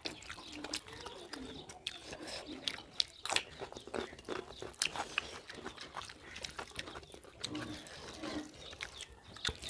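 Two people eating rice khichdi with their hands: chewing and lip-smacking, with fingers mixing rice on steel plates, heard as a scatter of small wet clicks at irregular times.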